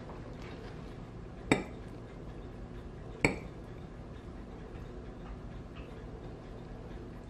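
Metal fork clinking twice against a ceramic plate while twirling spaghetti: two sharp, briefly ringing clinks, the first about a second and a half in, the second near the three-second mark, over a faint steady hum.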